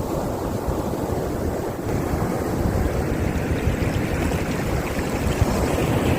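Steady low rushing noise of ocean surf with wind buffeting the microphone.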